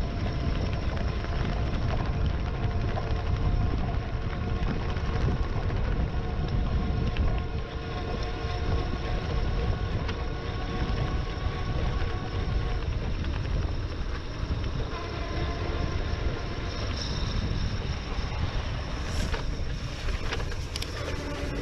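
Wind rumble and road noise on the mounted camera's microphone while riding an e-bike, with a steady hum of a few tones. A cluster of short clicks comes near the end.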